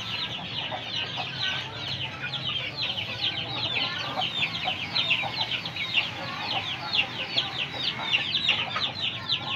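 Young Aseel chickens peeping without a break: many short, high, falling chirps overlapping one another.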